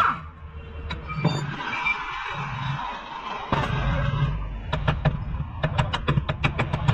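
A hiss for a couple of seconds, then rapid hammer blows on steel, about four to five a second, as a ball-peen hammer knocks at the lower shock-absorber bolt on a Hyundai Tucson's rear suspension knuckle.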